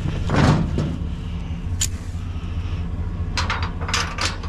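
Tow truck engine running steadily with a low hum. Over it, the steel tow hook and chain clink against the diamond-plate deck: a rattle in the first second, a sharp clink near two seconds, and a quick run of clinks shortly before the end.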